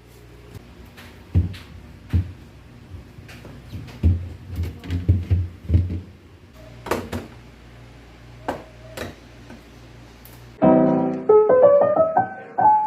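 Scattered knocks, thuds and light clicks of objects being handled, over a faint steady low hum. Piano music starts about ten and a half seconds in and is louder than the handling sounds.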